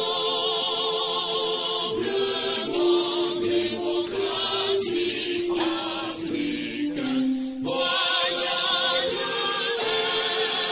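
Choir singing long held notes with vibrato, the notes shifting a couple of times.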